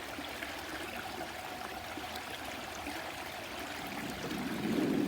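A small stream running over rocks: a steady trickling and babbling of water.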